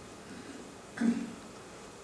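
Quiet room tone with one short vocal sound from a person, about a second in.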